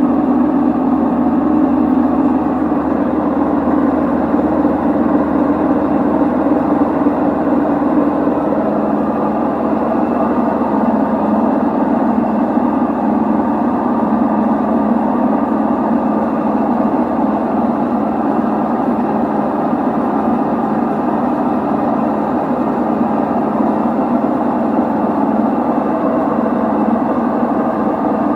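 LG direct-drive washing machine running with a loud, steady mechanical noise; its pitch drops slightly about nine seconds in.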